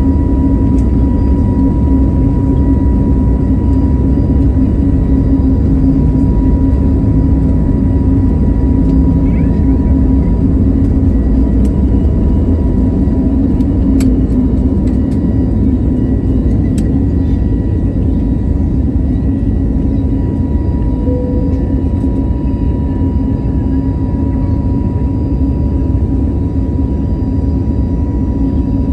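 Cabin sound of an Airbus A320neo's CFM LEAP-1A engines running at takeoff thrust: a steady loud drone with a thin high whine, carrying through the takeoff roll and lift-off into the initial climb. There are a few sharp clicks a little past halfway, and the sound eases slightly after that.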